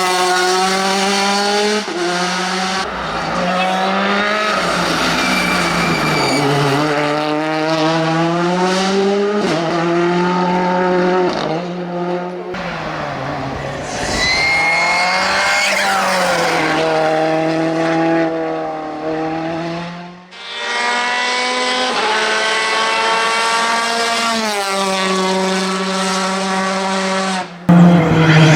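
Ford Fiesta R5 rally car's 1.6-litre turbocharged four-cylinder engine at racing pace, revving hard and dropping back again and again through gear changes, with some tyre squeal.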